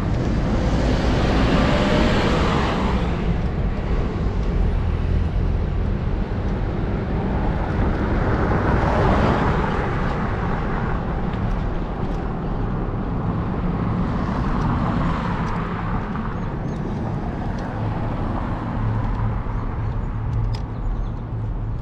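Road traffic heard from a moving bicycle: cars go by in swells near the start, about halfway through and around two-thirds of the way, over a steady low rumble of wind on the microphone.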